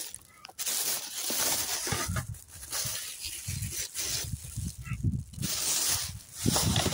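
Thin plastic bag rustling and crinkling as it is handled, in several spells of a second or two, with a low rumble underneath from about two seconds in.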